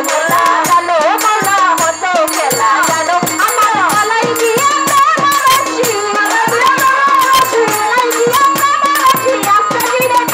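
A woman singing a Bengali folk devotional song at full voice into a microphone, her melody sliding and ornamented, over a fast steady beat of drum strokes and rattling percussion.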